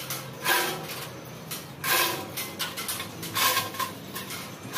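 Manual chain block (3-ton chain hoist) being hauled by hand, its chain clattering and rattling through the hoist in a loud burst with each pull, about every one and a half seconds, as it lifts a heavy steel pipe.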